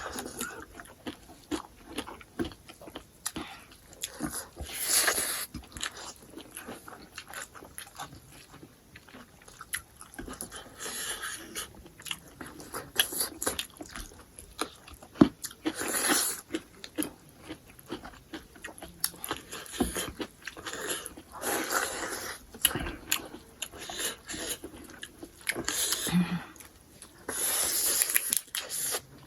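A person eating close to the microphone: chewing and biting with wet clicks, and louder crunchy bursts every few seconds.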